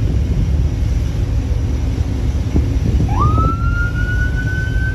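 Steady low rumble of a boat running at speed with wind on the open sea; about three seconds in, a police siren starts, sweeping quickly up and then climbing slowly into a long held wail.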